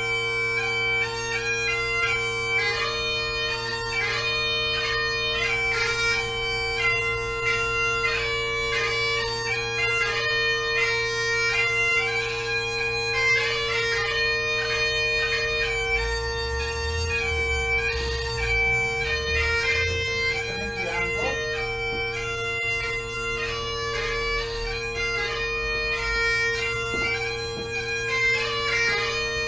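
Bagpipes playing a tune, the melody moving over steady held drones.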